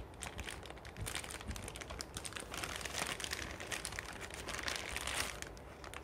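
Packaging crinkling and rustling as it is handled, a dense run of quick irregular crackles.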